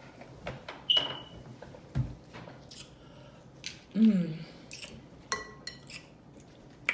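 Close-up eating sounds from a seafood boil: wet mouth clicks and smacking, snaps and clinks from shells and utensils, with a ringing clink about a second in. About four seconds in comes a short, loud voiced sound falling in pitch.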